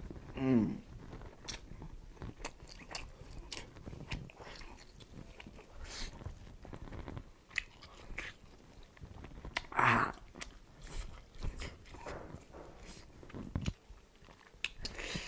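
Close-miked chewing and biting of meat eaten by hand, with crackly crunches and wet mouth clicks throughout. Two short hums from the eater break in, one just after the start and a louder one about ten seconds in.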